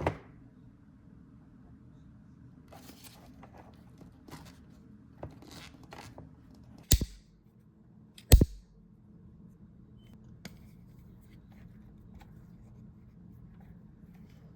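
Hand-tool work on leather: a sharp knock at the start, a run of soft scraping or snipping strokes, then two loud, sharp knocks about a second and a half apart.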